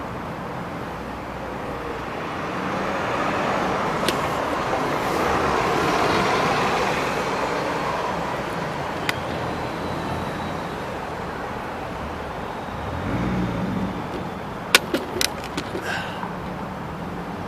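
Road traffic: a steady roar of passing cars, one swelling past over several seconds and fading, with a quick run of sharp clicks near the end.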